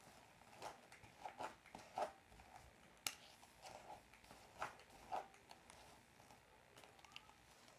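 Hairbrush strokes through long, tangled hair: faint, short swishing rustles, several of them at irregular intervals.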